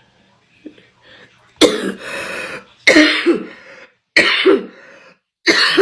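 A woman coughing uncontrollably after a dab of cannabis concentrate: four loud coughs, about one every second and a quarter, the first about a second and a half in.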